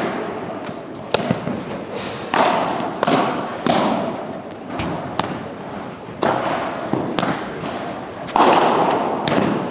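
Padel rally: the ball is struck back and forth by solid padel paddles and bounces on the court, a run of sharp knocks every half second to a second, echoing in a large hall.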